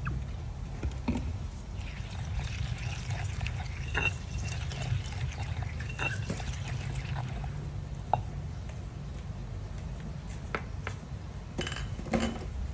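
Sauce poured from a plastic bottle into a granite mortar, then a stone pestle stirring and pressing the chilli paste, with scattered light knocks of stone on stone. A steady low hum runs underneath.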